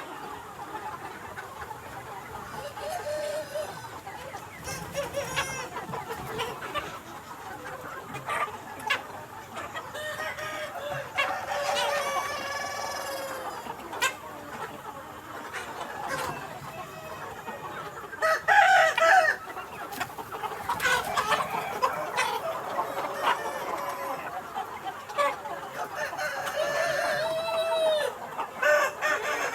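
A flock of Mía chickens, a Vietnamese breed, clucking, with roosters crowing several times; the loudest crow comes a little after halfway.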